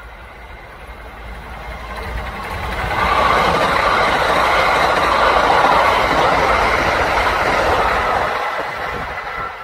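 Kintetsu electric train passing at speed: the running noise builds over about three seconds, stays loud for about five, then fades away.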